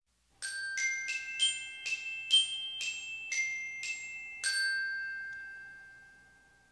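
Short intro jingle of bright, bell-like struck notes: about ten notes in a quick melody, the last one ringing out and fading away.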